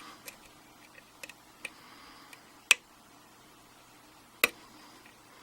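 Small metallic clicks and ticks from a hook pick working the pins of a Sargent pin-tumbler lock cylinder under tension: a few faint ticks, then two sharper clicks, about halfway through and near the end.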